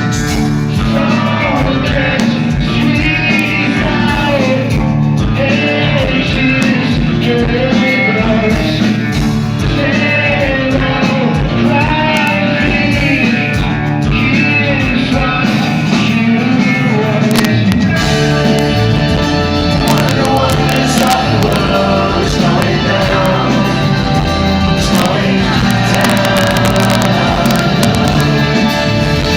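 Live rock band playing at full volume, with a wavering vocal or lead melody over guitars, bass and drums. About halfway through, the band thickens into heavier, bass-laden playing.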